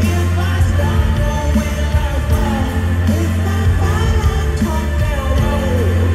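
Live rock band playing through a large venue's PA, heard from the audience: a male lead vocal over electric guitar, electric bass and drums, with a steady heavy bass line and regular drum hits.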